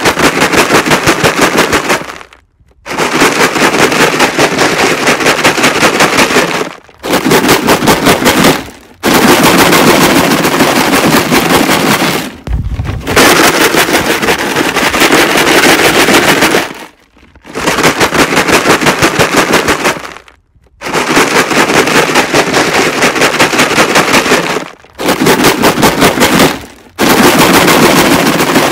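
Plastic jug filled with rocks shaken hard, a loud, dense rattle in bouts of two to four seconds with brief pauses between, about nine bouts. It is the jug-of-rocks noise distraction used in PSA protection-dog trials.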